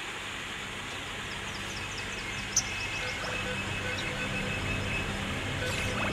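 Electronic soundtrack: a steady low drone that slowly grows louder. A quick run of high chirping blips and a sharp click come about two and a half seconds in, and steady high tones join from about three seconds.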